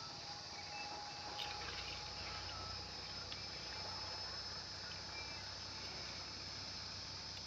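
Outdoor riverside ambience: a steady high insect drone with a few short chirps, and a low rumble that comes in about a second and a half in.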